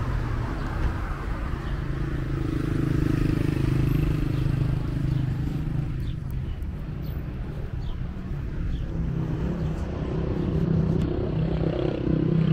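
Road traffic: cars driving past with a low engine hum that swells as one passes about two to five seconds in and again as another passes near the end.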